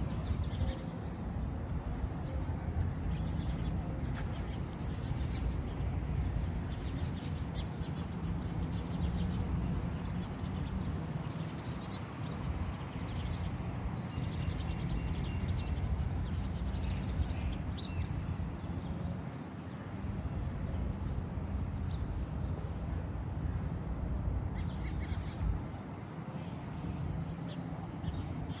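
Small birds chirping in short, scattered calls over a steady low rumble of street background.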